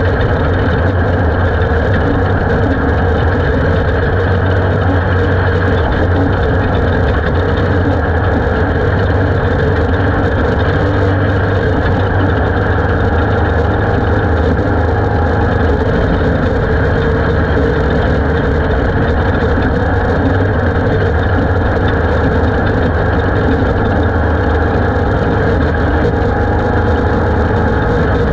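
Ultra4 off-road race car's engine running hard at a steady high speed, about 55 to 65 mph, heard from on board with wind and dirt-track tyre noise. The sound is loud and even, with no gear changes or lifts.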